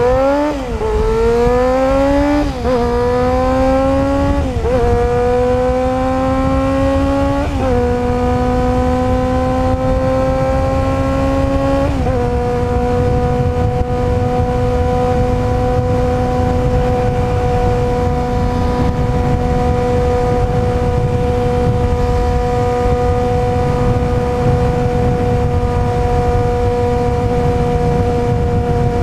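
Yamaha FZR250R inline-four through an LCI carbon aftermarket silencer, accelerating through the gears. Its pitch climbs and falls back at five upshifts in quick succession, then it holds one steady high note from about twelve seconds in.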